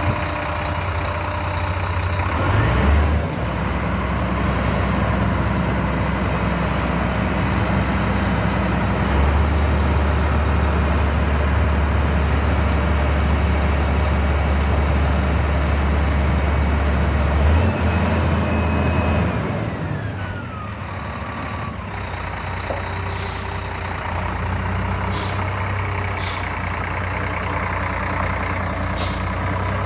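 Diesel engine of a loaded heavy truck running as it pulls away. Its low note steps up a few times, then eases off about 20 seconds in. A few sharp clicks come near the end.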